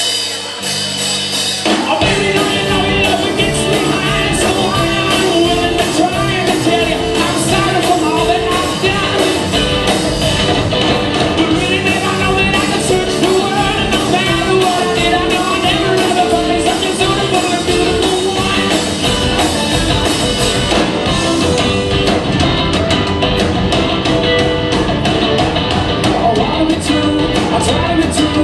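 Live rock band playing a song: electric guitars, bass and drum kit with a lead singer. A few held notes open it, and the full band comes in about two seconds in.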